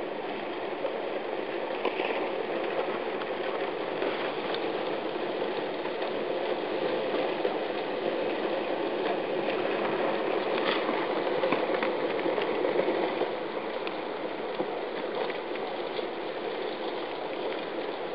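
River ice breaking up and moving: drifting floes grind and crunch against each other and against the shore ice, a continuous loud crackling scattered with small sharp cracks. It swells louder about ten to thirteen seconds in.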